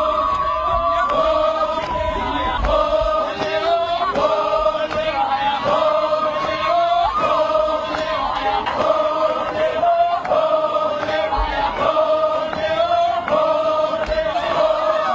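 A group of voices singing a chanted song together, men's voices prominent, in short phrases of held notes that repeat over and over.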